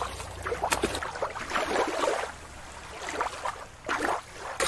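Water lapping and sloshing, then after about a second water splashing in a large pool as an orca leaps, with a loud splash near the end.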